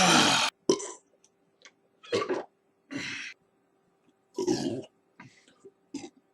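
Short burps: a loud one in the first half-second, then a string of brief ones, each under half a second, coming roughly a second apart, over a faint steady hum.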